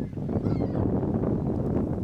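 Wind rumbling on the microphone, with a short, faint bird call about half a second in, amid a flock of waterfowl being fed.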